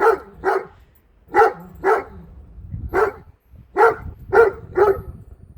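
Great Dane barking repeatedly, about eight short barks coming mostly in pairs.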